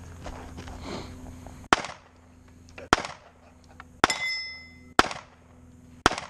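Five pistol shots about a second apart. After the third, a steel target rings with a clear metallic tone, the sign of a hit.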